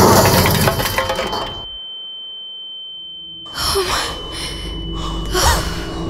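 Light plane crashing into sand: a loud crash that dies away within the first second and a half, leaving a thin, steady, high ringing tone like ringing ears over near silence. About halfway through, breathy gasps and rushes of noise fade back in under the ringing.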